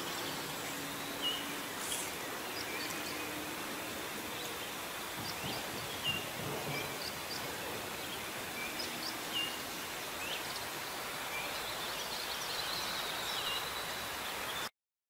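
Steady outdoor background hiss with small birds chirping in short, repeated calls.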